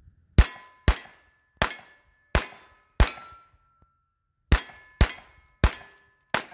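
Nine pistol shots from a semi-automatic handgun: five fired in quick succession, a pause of about a second and a half, then four more. After most shots a steel plate target rings with a short metallic tone, marking a hit.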